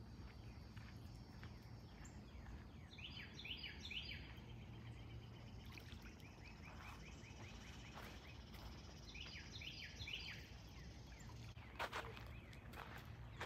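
Wild songbirds calling in the background: a phrase of quick falling notes about three seconds in and again near ten seconds, with a run of trilled notes between them, over a steady high insect hum. A couple of short sharp clicks near the end.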